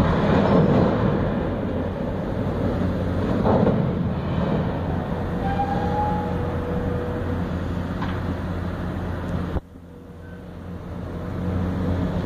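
Heavy demolition machinery running with a steady, low, engine-like drone. It is loudest at the start, drops away suddenly near the end, then builds again.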